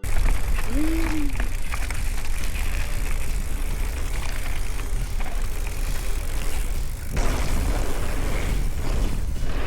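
Mountain bike being ridden down a trail: heavy wind buffeting on the camera microphone over tyre and trail noise with scattered rattles and knocks, and a short rising-and-falling tone about a second in.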